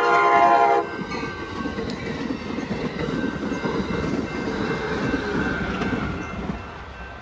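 An Amtrak Capitol Corridor passenger train's horn chord ends just under a second in. The train then passes at close range, its wheels rumbling and clattering over the rails and the crossing, and the sound eases near the end.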